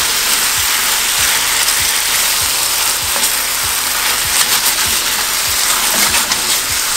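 Chicken wings sizzling steadily in a sugary sauce in a frying pan over a gas flame, stirred with a wooden spatula as the sauce reduces to a sticky glaze.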